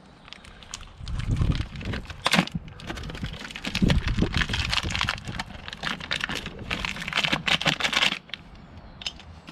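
Plastic blister packaging crinkling and clicking in a run of quick, irregular crackles as new motorcycle clutch and brake levers are pulled out of it.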